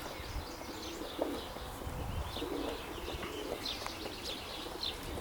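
Domestic pigeons cooing faintly, with short high bird chirps coming in repeatedly through the second half.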